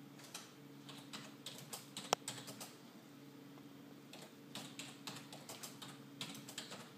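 Irregular light clicks and taps, with one sharper click about two seconds in, over a steady low electrical hum.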